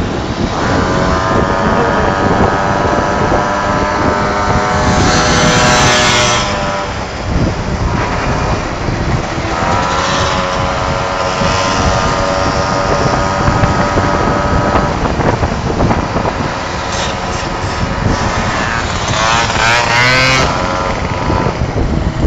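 Small two-stroke moped engines running at speed, with heavy wind rumble on the microphone. A high engine note holds steady and rises sharply twice, about five seconds in and again near the end, as a moped revs up.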